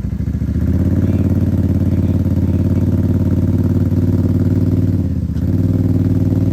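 Small off-road vehicle engine held at high revs under throttle, easing off briefly about five seconds in, then revving back up.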